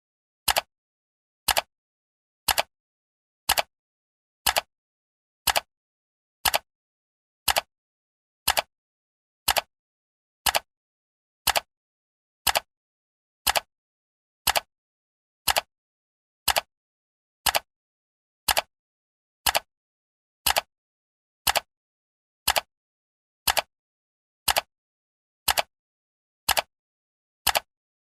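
Clock-style ticking sound effect of a countdown timer: one sharp tick every second, evenly spaced, with dead silence between the ticks.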